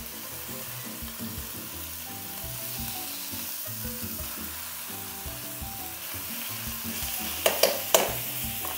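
Marinated sliced beef sizzling as it fries in a hot oiled wok, being stirred and tossed. Near the end come two or three sharp clicks.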